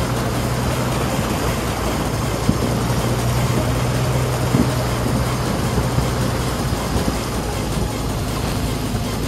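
A 4WD's engine running at a steady low drone while the vehicle drives through a shallow river, with water splashing and washing around the wheels and a few small knocks.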